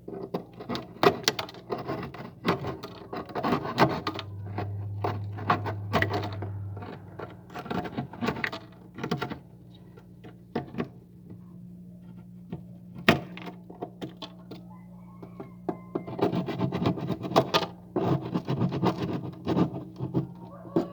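Frost and ice being scraped and chipped off the inside of a freezer: irregular clusters of sharp scrapes and cracks with a lull in the middle, over a steady low hum.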